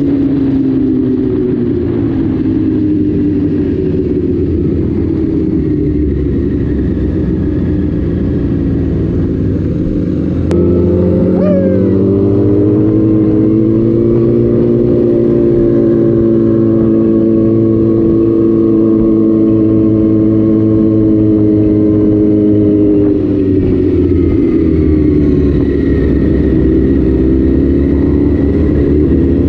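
Yamaha sport bike's inline-four engine heard onboard while riding, its pitch rising and falling with the throttle. The sound steps louder about a third of the way in.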